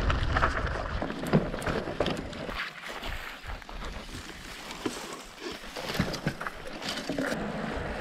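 Mountain bike rolling over a rough trail, heard from an action camera on the rider: tyre noise and scattered clicks and rattles from the bike, with wind rumbling on the microphone.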